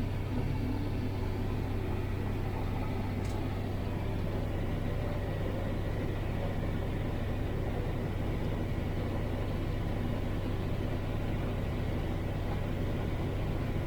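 Combine harvester running steadily while harvesting corn, heard from inside the cab as an even, unchanging low drone of engine and threshing.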